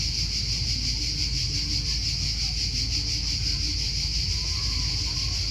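A dense chorus of cicadas: a steady, shrill buzzing hiss with a fast pulse, over a low rumble.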